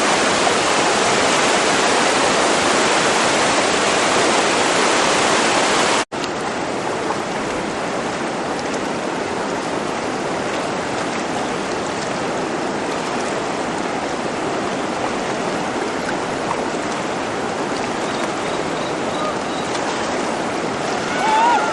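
Rushing whitewater of a river rapid, a steady dense roar of water. About six seconds in it cuts off for an instant and resumes somewhat softer.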